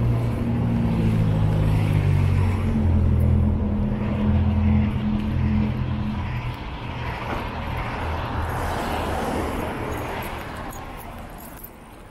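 A motor vehicle's engine running close by, a strong low hum for about the first six seconds, then giving way to a broader traffic-like rush that fades near the end.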